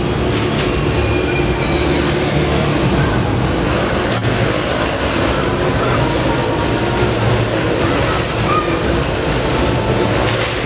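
Stunt motorcycle engines running in a loud, continuous din.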